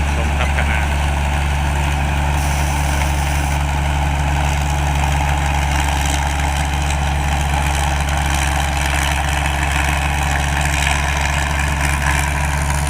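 Kaset Pattana 'Jao Chang Wai Fai' 225 hp rice combine harvester's engine running steadily, a loud, even, low drone that does not change.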